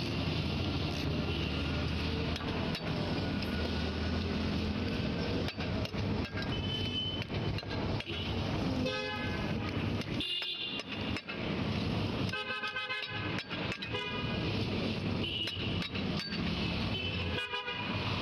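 Busy street traffic: a steady rumble of engines with vehicle horns honking in short blasts several times, mostly in the second half, and a few scattered sharp clicks.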